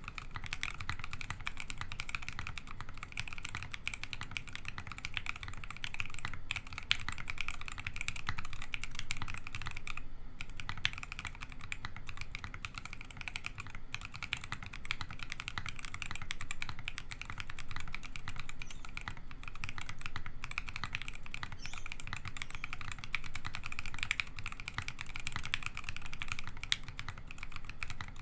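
Steady, fast typing on a Gray Studio Think6.5 V2 custom mechanical keyboard with FFFF linear switches, with a short pause about ten seconds in. The board has a gasket-mounted FR4 plate, plate foam and a case dampener, which give it a muted sound with a soft bottom-out.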